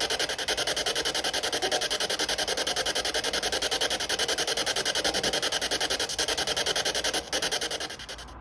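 Spirit box (ghost box) sweeping through radio frequencies: loud, harsh static chopped into rapid, even pulses of about ten a second, cutting off suddenly near the end.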